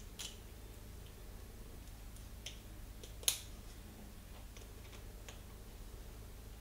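Scattered faint clicks and light metallic taps as a SRAM XX1 rear derailleur's pulley cage is handled and a T-handle hex key is picked up off a metal workbench and fitted to a pulley bolt. The sharpest click comes a little past halfway.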